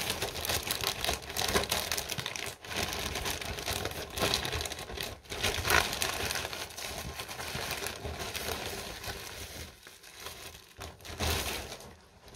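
Crinkly parcel packaging being handled and torn open by hand, a dense, irregular crackling and rustling that thins out in the last couple of seconds.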